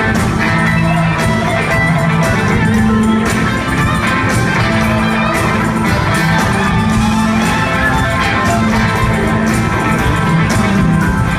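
Live rock band playing loudly through a theatre PA: several electric guitars over a steady drum beat.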